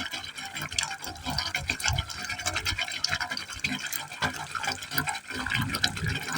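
Water falling into a pipe hole, splashing unevenly, with irregular deeper pulses from the pipe mixed in.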